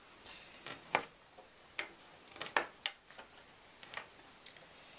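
Power supply cables and their plastic connectors being handled: a series of sharp clicks and short rustles, loudest about a second in and again around two and a half to three seconds.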